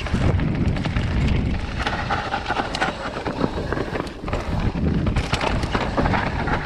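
Commencal Meta Power 29 electric mountain bike descending a rough dirt-and-stone trail: tyres rolling over dirt and stones, with frequent knocks and rattles from the bike over bumps, over a constant low rumble.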